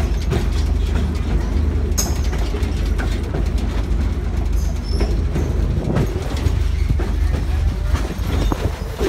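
Passenger train rolling along the track: a steady rumble from the coach, with scattered clicks and knocks from the wheels on the rails.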